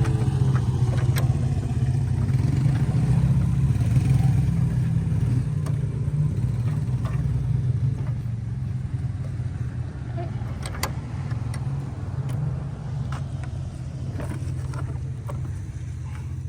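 A motor vehicle engine running steadily with a low, even hum. It comes in suddenly and eases off a little about halfway through.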